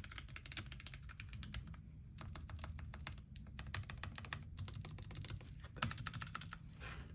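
Typing on a Womier K61 mechanical keyboard fitted with Gateron North Pole linear switches: a fast, continuous run of key strokes, with a brief pause about two seconds in.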